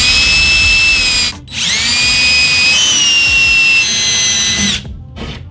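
Cordless drill with a 7/32-inch bit boring holes for wall anchors. The motor whines at speed, stops briefly about a second and a half in, then spins up again and runs for about three seconds, its pitch stepping down partway, before cutting off.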